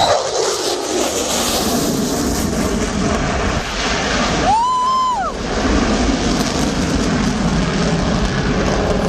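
Military jet aircraft flying past with a loud, steady roar, its pitch falling in the first second as it passes. Near the middle there is a brief high tone lasting under a second.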